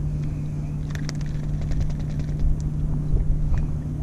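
Steady low hum of the boat's motor, with a run of light clicks and ticks from about a second in as a crappie is unhooked from a jig.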